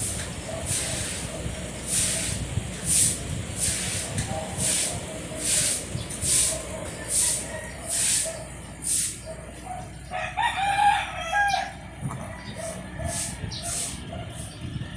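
Pomeranian snoring: a rhythmic, hissing breath about every three-quarters of a second, with a faint whistle under it. About ten seconds in, a drawn-out pitched call lasting under two seconds rises above the snoring.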